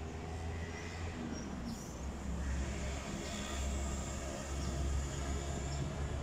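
Outdoor city street ambience: a steady low rumble of traffic, with a few faint, short, high bird chirps.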